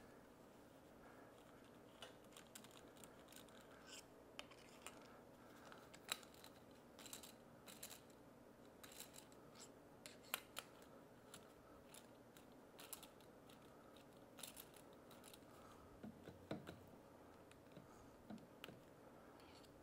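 Faint, scattered small metallic clicks and scrapes of a screwdriver and gloved hands working a new electromagnetic brake into place on an electric golf-cart motor, with the brake's cog teeth being lined up on the splined shaft.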